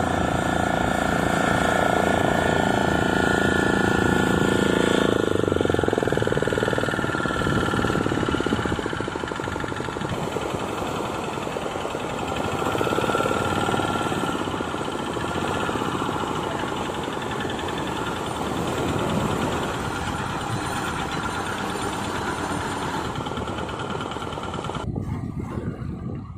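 Tractor's diesel engine running steadily with a knocking rattle as it pulls a fishing boat.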